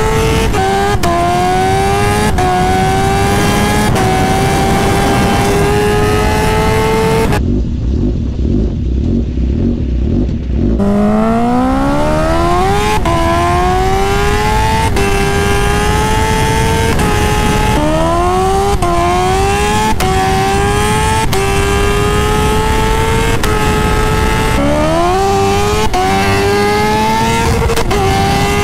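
Kawasaki Ninja H2-series supercharged inline-four under full-throttle acceleration, heard from the rider's seat. The engine pitch climbs in each gear and drops back briefly at each quick upshift, over several pulls. For about three seconds near the middle the engine note gives way to a low rumble, then another pull climbs from low revs.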